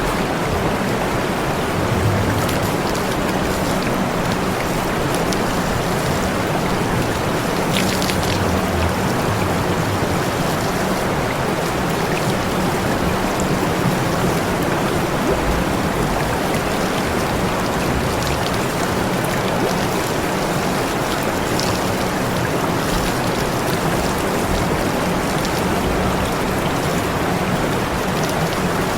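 Water spraying in a steady, unbroken rush, with a faint low hum underneath.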